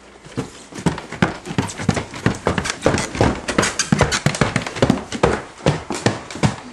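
Quick, heavy footsteps of people hurrying down a staircase and on across the floor, about four or five close, loud steps a second.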